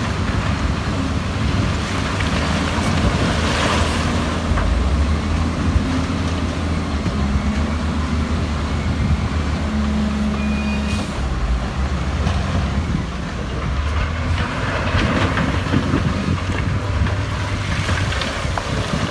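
Heavy diesel earthmoving machinery at work: a low engine drone that rises and falls in pitch, with scattered metallic clanks.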